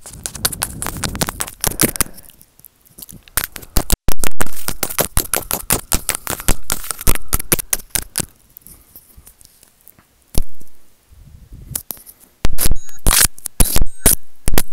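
Close-up crackling, clicking and scraping as a small white corded microphone is bitten and mouthed between the teeth, right against the capsule. Near the end, sharper and louder taps come as a metal fork is brought to the mic.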